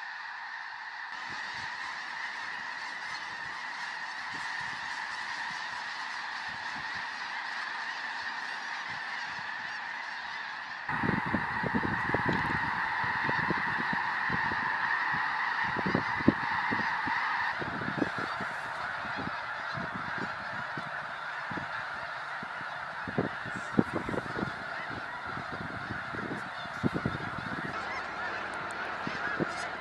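A huge flock of snow geese calling in flight: a dense, unbroken chorus of thousands of honks. About a third of the way in the chorus gets louder, with scattered low thuds mixed in.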